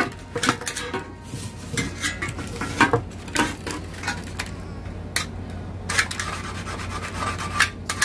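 A scriber scratching lines into a thin sheet-metal strip, drawn along a spirit level as a straightedge, with scattered clicks and clinks as the metal and tools are handled. A longer stretch of scratching comes near the end.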